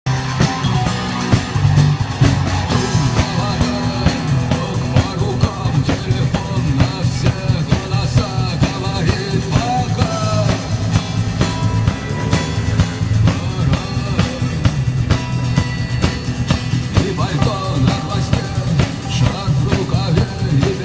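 A live rock band playing: a drum kit keeps a steady beat over a heavy bass line.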